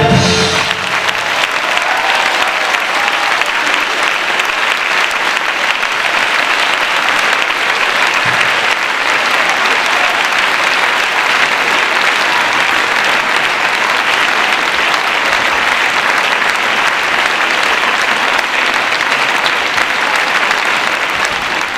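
Audience applauding steadily, just after the final note of a band-and-singers number.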